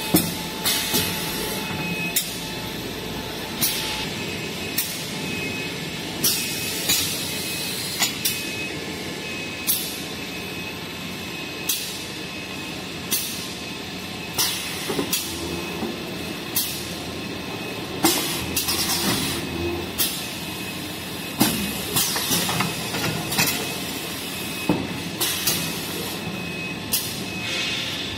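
Roll-bundling packing machine for toilet paper and kitchen towels running: a steady mechanical hum with frequent short hisses of compressed air from its pneumatic cylinders, irregularly spaced about every second.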